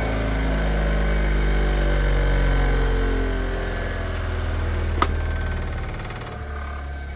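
Wire wheel's electric motor winding down after being switched off, its hum sliding slowly lower in pitch and fading, with a sharp click about five seconds in.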